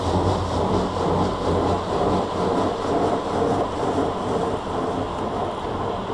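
Water jets of an Aquatus Prime touchless car wash spraying onto a car: a steady, dense rush of water over a low machinery hum.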